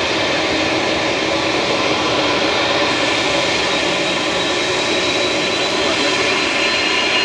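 Boeing 787 taxiing with its jet engines at low power: a steady rushing engine noise with a thin high whine.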